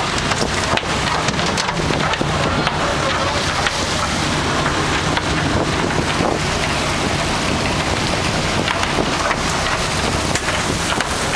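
Moving fishing boat's engine running steadily, with wind buffeting the microphone and the rush of water from the wake.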